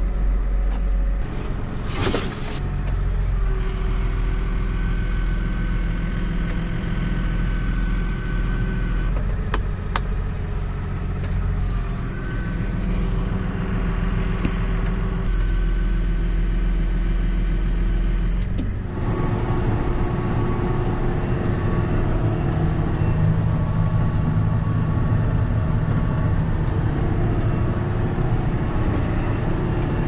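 JCB Fastrac tractor engine running steadily under load while the tractor drives and sprays, with a steady hum and whine. There is a short rushing noise about two seconds in, and the sound changes character abruptly a few times.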